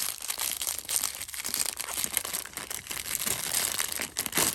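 Knife packaging wrapping crinkling and tearing as it is pulled off by hand: a continuous run of irregular crackles.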